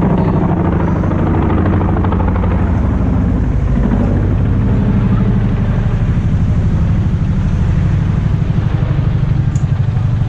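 A large engine running, a loud deep steady rumble that takes on a fast, regular pulsing beat near the end.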